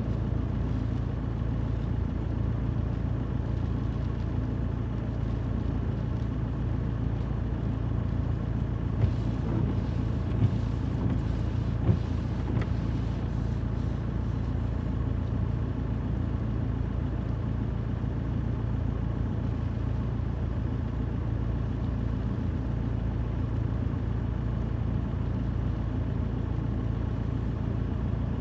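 Strong wind buffeting a parked car, heard from inside the cabin as a steady low rumble, with three brief knocks between about nine and twelve seconds in.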